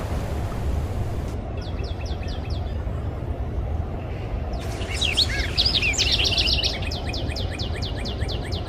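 Butcherbirds calling: fast runs of short, high descending notes, with a brief burst of warbled, looping notes about five seconds in, over a steady low rumble of surf and wind.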